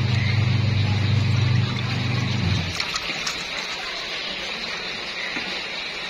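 Twin-tub washing machine's wash motor humming steadily as the pulsator churns clothes in water. The hum cuts off about two and a half seconds in, leaving water swishing and dripping in the tub while the pulsator pauses before reversing.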